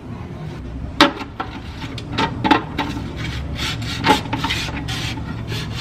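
Hand work on engine parts: irregular scraping and rubbing with a handful of sharp clicks and knocks as a part is pressed and worked into place.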